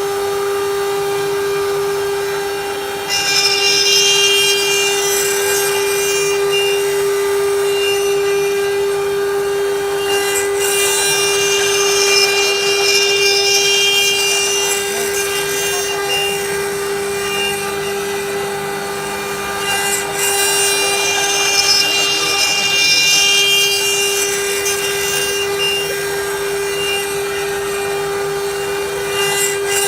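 CNC woodworking machine cutting wooden chair legs: the spindle runs with a steady whine while the cutter's noise through the wood swells and eases every several seconds.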